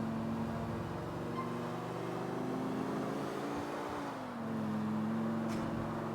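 Video game car engine sound: an engine running steadily, its pitch creeping up a little and then dropping back about four seconds in.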